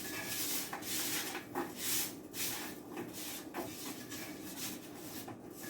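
Sliced shiitake mushrooms, coated in oil and salt, being tossed: a soft rustling shuffle repeated about twice a second.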